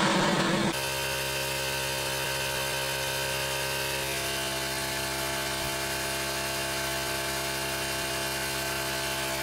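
Paint spray gun hissing steadily while spraying, over the even hum of an air compressor's motor. A louder, rougher noise cuts off under a second in.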